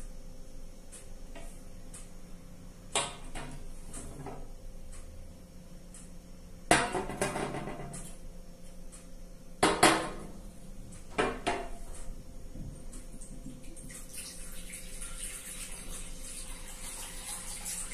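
Glassware set down on a glass tabletop: several sharp knocks and clinks, the loudest with a brief ring. Then water pours steadily from a glass bottle into a glass bowl, splashing, over the last few seconds.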